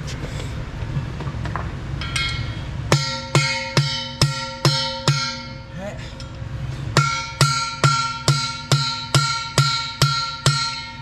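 Small sledgehammer striking a drift to drive a bearing race into the steel hub of a Caterpillar D10R final drive. Each blow rings the big housing with a bell-like tone. There are about six blows, a short pause, then about nine more, roughly two a second, seating the race down to the bottom of its bore.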